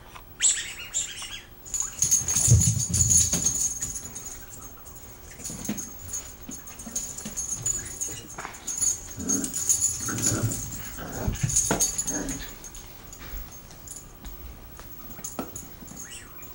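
Two small dogs, a papillon and a miniature pinscher, growling and scuffling as they play. The growls are loudest about two seconds in and again around ten to twelve seconds.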